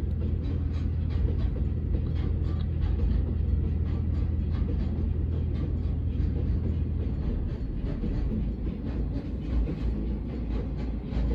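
Freight train rolling over a level crossing: a low steady drone from the diesel locomotive, with the wheels clacking over the rail joints in a steady rhythm, about two to three clacks a second. About seven seconds in the drone drops away, leaving the clatter of the passing wagons.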